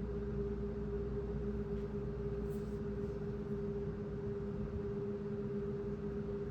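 Steady background hum with a constant low tone over an even rush of noise, unchanging throughout.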